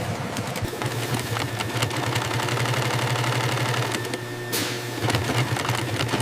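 Industrial stitching machine running: rapid needle clatter over a steady motor hum. It eases off briefly with a short hiss about four and a half seconds in, then picks up again.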